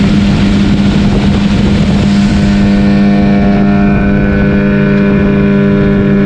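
Small outboard motor running at a steady speed, pushing a fibreglass boat along. For the first two or three seconds a loud rush of water spraying off the hull sits over the engine, then fades.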